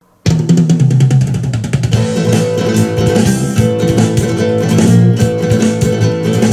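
Instrumental music with guitar, starting abruptly just after the beginning.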